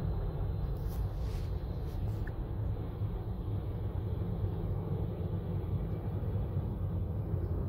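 Steady low rumble of distant jet aircraft engines at an airport, with a few faint rustles about one to two seconds in.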